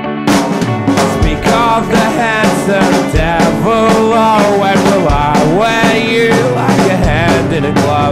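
Punk rock band recording: a quarter second in, the full band of electric guitars, bass and drums comes in over the guitar intro and plays on at full volume, with a melodic lead line bending in pitch above it.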